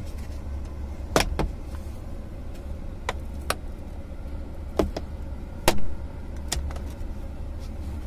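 Sharp plastic clicks and knocks from a car's AC control panel and its dashboard trim being pried and pulled loose from their locking clips. About seven clicks come at uneven intervals, the loudest about two-thirds of the way through, over a steady low hum.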